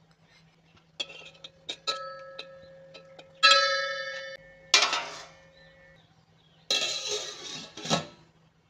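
Metal kitchen utensils clinking and ringing: a few light strikes, then a loud one about three and a half seconds in that rings for about a second. Two rough scraping or rushing noises follow, each about a second long.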